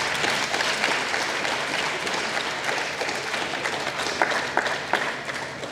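An audience of students applauding, starting at once and slowly dying away near the end.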